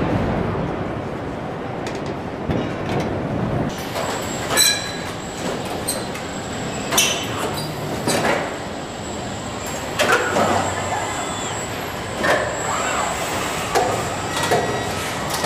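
Car body assembly line noise: a steady mechanical hum with sharp metallic clanks every couple of seconds and short rising and falling whines from the industrial robots' motors.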